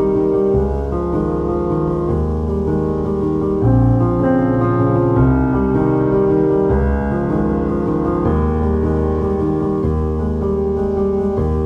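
Background music: a piano piece with chords changing every second or two.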